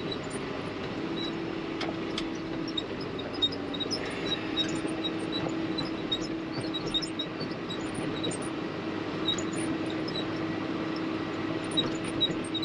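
Farm tractor engine running steadily while driving on the road, a steady hum with faint light ticking over it.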